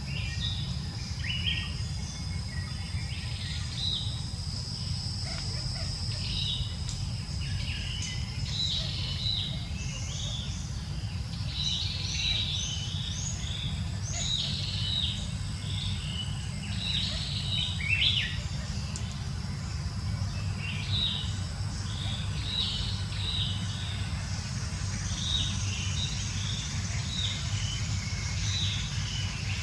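Many short, high chirping calls, scattered throughout, over a steady low rumble.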